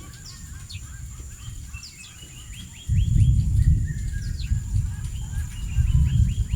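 Birds chirping in runs of short, quickly falling notes over a steady high-pitched whine. A loud low rumble sets in suddenly about three seconds in and stays the loudest sound.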